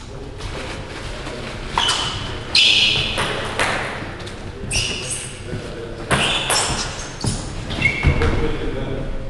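Table tennis ball bouncing in short, sharp pings and knocks between points, ringing in a large hall.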